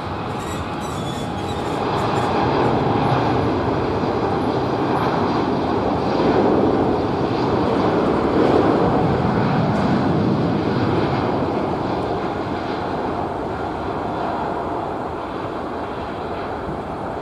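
Jet engines of a Boeing 787-9 at takeoff thrust during its takeoff roll, heard from a distance as a steady rushing noise. It builds over the first couple of seconds, is loudest in the middle, and eases off toward the end.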